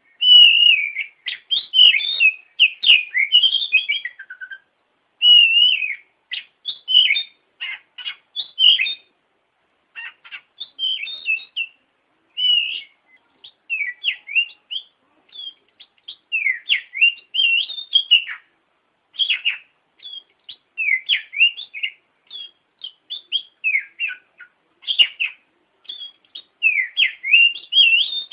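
Oriental magpie-robin (kacer) singing a varied run of short whistled phrases and chirps, broken by brief pauses. This is the lively song played as a pancingan to provoke a quiet kacer into singing.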